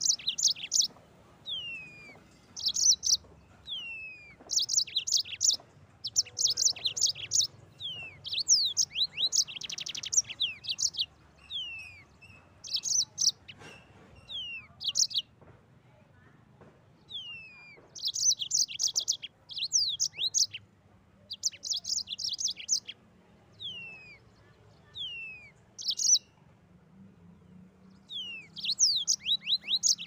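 Yellow-fronted canary (Mozambique canary) singing in lively repeated phrases: quick high trills alternate with clear whistles that slide down in pitch, each phrase broken by a short pause.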